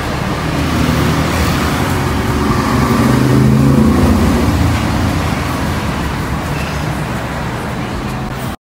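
A motor vehicle engine running steadily, a little louder around the middle.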